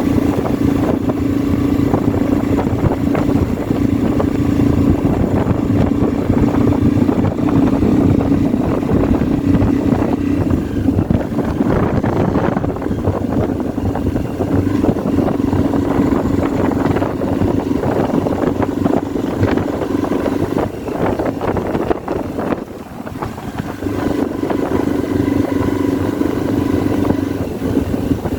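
Motorcycle engine running steadily while riding, with wind noise over the microphone. The engine note eases off briefly about three-quarters of the way through, then picks up again.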